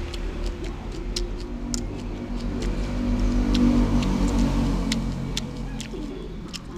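A motor vehicle's engine passing by, swelling to its loudest about halfway through and then fading, over a low steady rumble. Light clicks of chopsticks against a plate.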